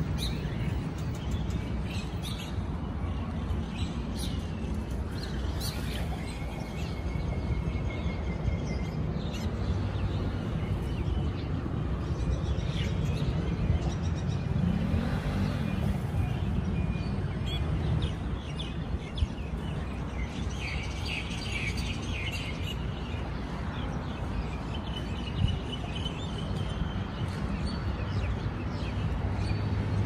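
Small birds chirping and calling on and off, with a quick run of chirps about two-thirds of the way in, over a steady low background rumble.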